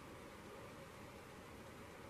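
Near silence: faint, steady room tone with a light hiss.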